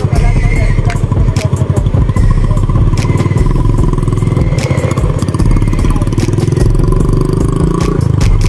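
Motorcycle engine running at low speed, close to the microphone, with a steady low rumble and scattered sharp clicks.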